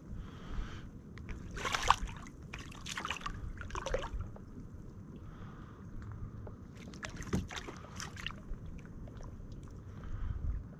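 Water splashing in two bouts, about two seconds in and again about seven seconds in, as a small speckled trout thrashes at the surface while it is pulled alongside a kayak and taken by hand, over a low steady rumble.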